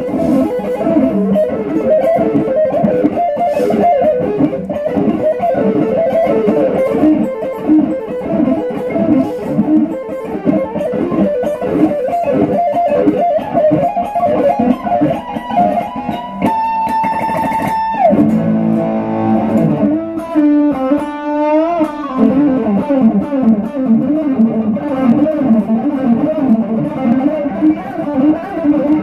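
Fender Stratocaster electric guitar played through a small combo amplifier: fast single-note lead runs, with a long held high note a little past halfway that drops away in a pitch bend, and a rising bend a few seconds after.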